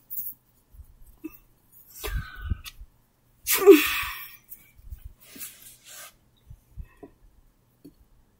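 Plush toys being handled and set down on a carpet, with soft rustles and low bumps. About three and a half seconds in comes a single short, loud, breathy burst of a person's voice.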